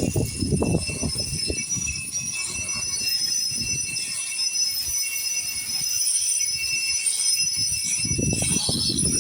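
Power grinder running at a steady high whine, grinding paint off a concrete foundation wall. A rough, grating grind of the disc against the wall is strongest in the first couple of seconds and again near the end.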